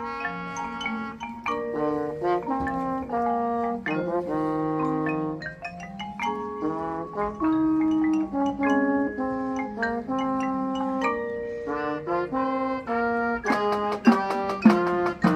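Marching band playing: sustained brass chords and melody over mallet percussion, with sharp, rapid drum strokes joining near the end.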